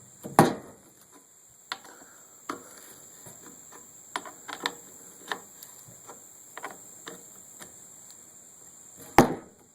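Irregular light clicks and knocks of a chainsaw wrench on the guide-bar nuts as they are tightened, with sharper knocks about half a second in and near the end.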